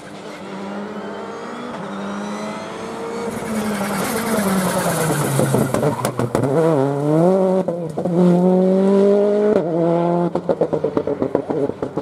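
Rally car engine at full throttle, its note climbing, then dropping and rising several times through braking and gear changes, then holding high. Near the end it breaks into a rapid stutter of cracks as the throttle comes on and off.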